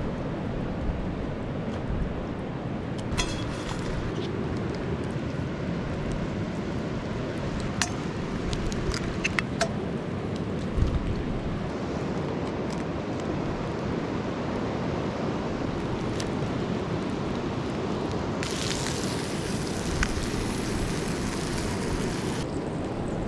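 Steady outdoor rushing noise, like wind or moving water, with a few light clicks and clinks scattered through it.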